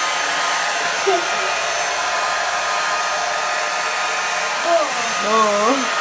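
Handheld electric hair dryer blowing steadily, with brief voice sounds about a second in and near the end.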